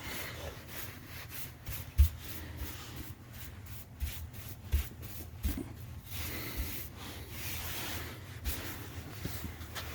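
A brush swept over a freshly sanded drywall patch in repeated quick hissing strokes, clearing off the sanding dust ahead of priming, with a few dull low thumps.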